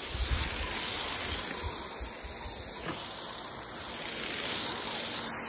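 Chapin hose-end sprayer on a garden hose spraying water onto grass: a steady hiss of spray, with a few low bumps near the start.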